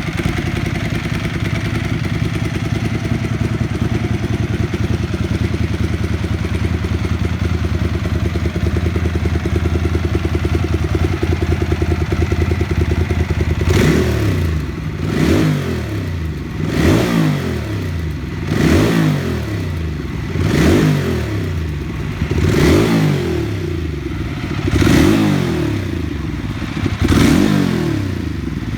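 Ducati 999S's Testastretta 90-degree V-twin idling steadily, then revved in about eight short throttle blips roughly two seconds apart, each rising and falling back to idle.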